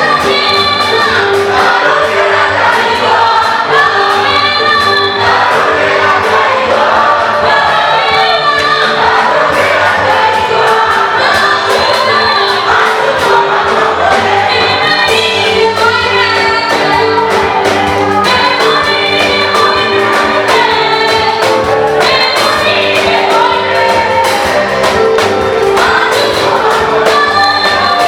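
Choir singing an African gospel song in repeated phrases over live instrumental backing with held bass notes and a steady drum beat.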